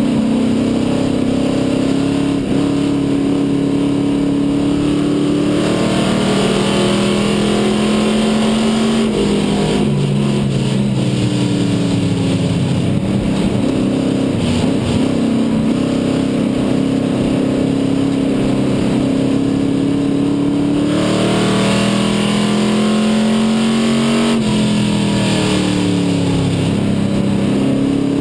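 Dare Stock race car's engine heard from inside the cockpit, running hard and loud at racing speed. Its pitch rises and falls as the car accelerates and lifts, with clear drops about ten and twenty-one seconds in.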